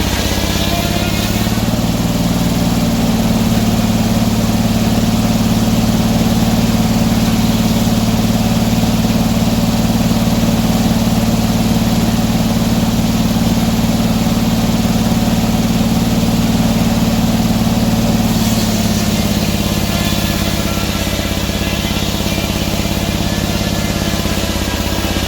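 An engine running steadily. Its note strengthens about a second and a half in, holds, and eases back a little after eighteen seconds.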